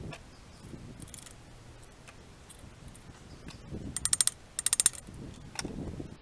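Ratchet wrench clicking in two quick runs, about two thirds of the way through, as main bearing cap bolts on an AMC 232 six-cylinder block are worked loose, with light knocks of metal tools and parts.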